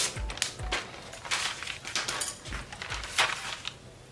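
Dotted pattern paper rustling and crinkling as pattern pieces are handled and laid on a cutting mat, in a series of short bursts.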